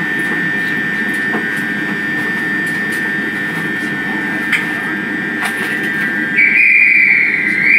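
Train sound effect: a steady low rumble with a thin high whine, a few faint clacks, and a louder high squeal coming in about six seconds in, as of brakes on a train pulling into a station.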